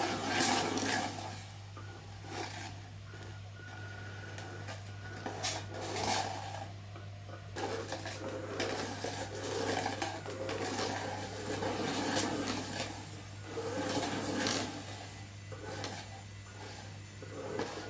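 Small electric drive motors of a budget fighting-robot test bed whirring in repeated surges as it spins and drives about, its plastic shell rubbing and scraping on a laminate floor, with scattered clicks and knocks.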